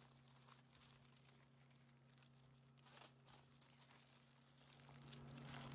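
Near silence: a faint steady low hum, with one brief faint rustle about three seconds in.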